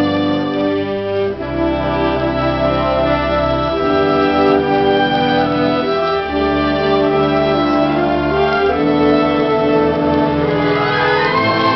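Concert wind band playing sustained, slowly changing chords, with a rising run near the end.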